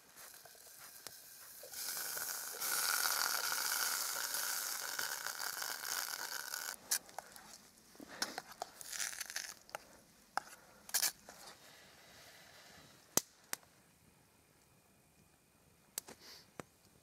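Food sizzling in a metal mess tin on a campfire: a loud hiss for about five seconds, starting a couple of seconds in. After it come scattered sharp clicks and scrapes of metal on metal.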